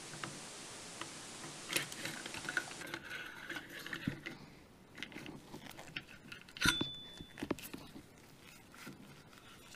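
Steel parts of a Magnum Research Desert Eagle Mark XIX pistol clicking and scraping as the frame is pulled straight back off the slide and the parts are handled on a cloth-covered table. A louder metallic click with a brief ring comes about two-thirds of the way through.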